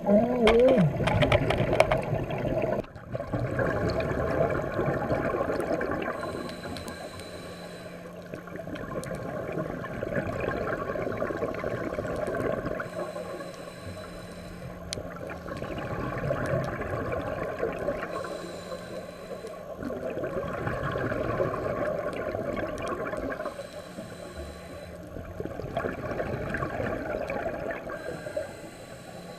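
Scuba diver breathing through a regulator underwater, about every six seconds: a bubbling gurgle of exhaled air lasting a couple of seconds, then a short hiss as the next breath is drawn. A wavering pitched sound opens it in the first second or two.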